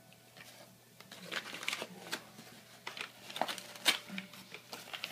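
A cat shredding paper: a quick, irregular run of rustling, crinkling and ripping that starts about a second in, with a few sharp snaps as the sheet tears.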